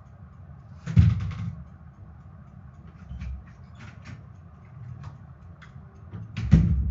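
Wobbly STC ceiling fan running, a steady low hum with scattered light ticks, and two louder knocks, one about a second in and one near the end.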